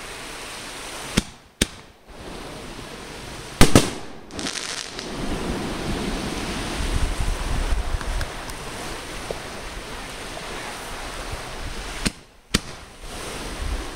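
Fireworks going off: two sharp bangs about a second in, a louder one near four seconds and another near the end, as a firework shoots up. Between them there is a steady rush of wind on the microphone.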